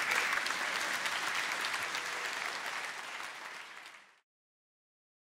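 Audience applauding, thinning out toward the end and cut off abruptly to silence about four seconds in.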